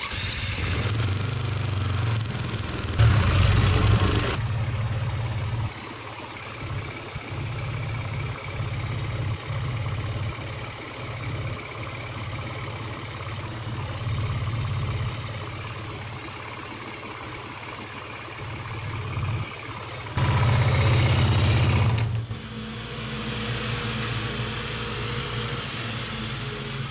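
Single-cylinder four-stroke engine of a 2021 Beta 430 fuel-injected dirt bike idling steadily on its own from a cold start, throttle untouched, while it warms up and the stepper motor adapts the idle air. A cooling fan blows alongside it. The sound jumps louder for a second or two twice.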